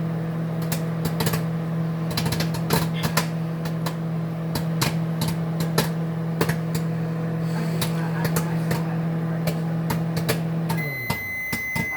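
Microwave oven running with a steady hum while popcorn kernels pop irregularly inside, a few pops a second. About eleven seconds in the hum winds down as the cycle ends, and the microwave's long beep starts.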